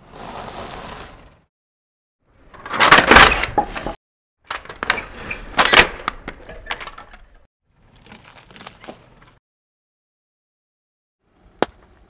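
A car tyre crushing brittle things, pretzels among them, in separate bursts of crunching and crackling. The loudest crunch comes about three seconds in, more crackling follows, and a single sharp snap comes near the end.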